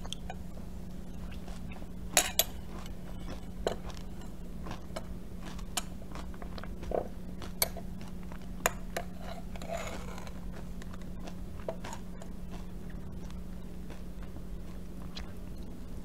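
Close-up eating sounds: scattered short, crisp clicks and crunches as crunchy granola is chewed and a metal spoon and metal straw knock against a glass cup, the loudest a couple of seconds in. A short sip through the straw comes near the middle, over a steady low hum.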